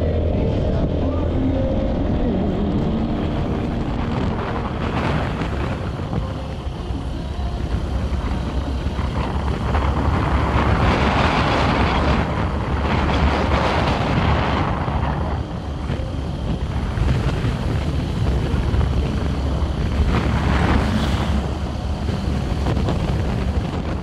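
Vehicle driving along a road: a steady low engine and road rumble, with gusts of wind on the microphone swelling louder about ten seconds in and again near the end.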